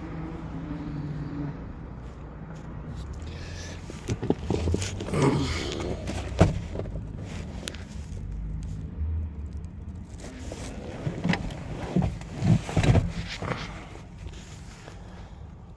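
Knocks, thuds and scraping in two bunches, with a low steady hum in the first second or so.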